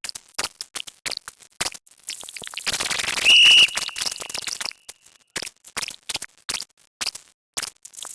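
Sped-up sound effects: a rapid, irregular run of sharp clicks and taps, with a stretch of hiss in the middle and a short, loud high-pitched beep about three and a half seconds in that fades away.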